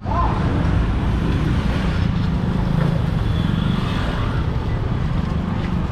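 Street traffic: the small engines of motorbikes and tuk-tuks passing close by, a steady rumble.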